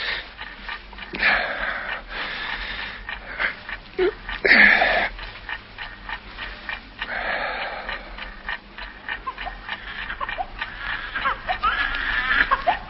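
A baby fussing and crying next door in several breathy, raspy bursts, turning into short whimpering cries near the end.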